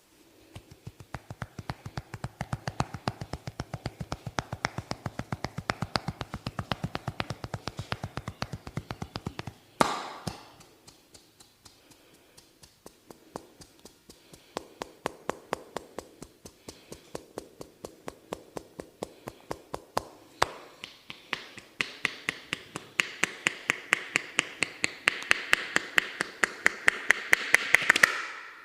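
Fast, even percussive massage strikes, several taps a second, from a barber working over a client. There is a single louder crack about ten seconds in and a brief lull. The tapping then builds louder and sharper toward the end and stops abruptly.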